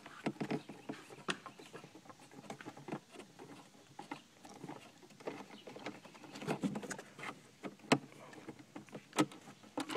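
Screwdriver working an instrument-cluster mounting screw under a car dashboard: faint, irregular small clicks and scrapes of metal on plastic, with a couple of sharper clicks near the end.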